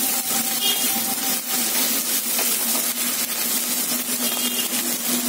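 Chopped onions and ginger-garlic paste sizzling in hot oil in a kadai while a wooden spatula stirs and scrapes across the pan, with a steady low hum underneath. The paste is being sautéed until its raw smell cooks off.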